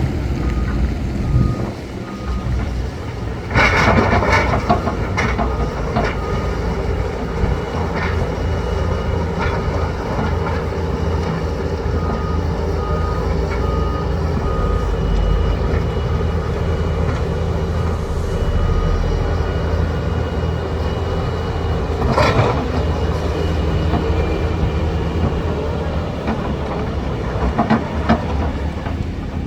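Heavy diesel construction machinery (excavator and dump truck) running steadily, with loud clanks of metal and load a few seconds in, again around eight seconds, and about two-thirds through. A reversing alarm beeps in two short runs.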